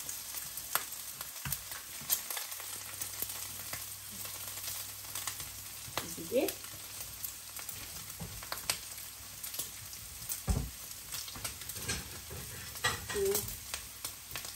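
Bacon frying in a pan: a steady sizzle with frequent crackling pops, and a few louder knocks.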